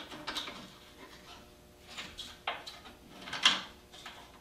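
Hand clamps and the wooden board being handled and set on a bandsaw sled: scattered small metal clicks and knocks, the loudest about three and a half seconds in.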